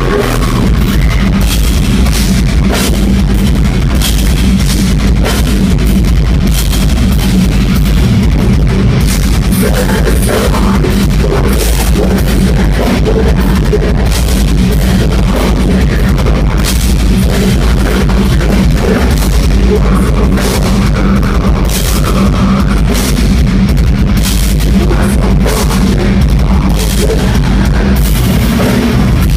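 A live metalcore band playing loud through a concert PA: distorted guitars, heavy bass and pounding drums, captured as a crude, overloaded recording.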